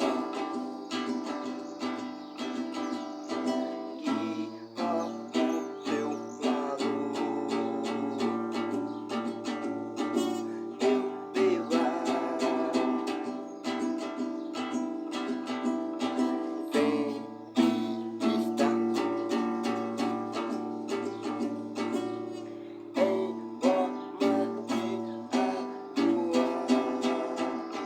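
Music played on a plucked string instrument, an acoustic guitar or ukulele, with notes picked and strummed in a steady flow.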